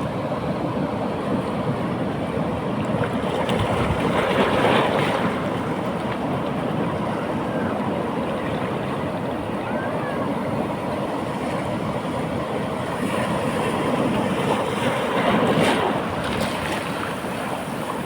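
Ocean waves on a beach: a steady wash of surf, with two louder breaking waves about four seconds in and again about fifteen seconds in.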